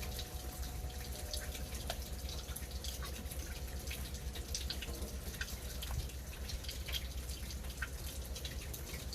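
Water bubbling and dripping: many small, irregular splashy clicks over a steady low rumble.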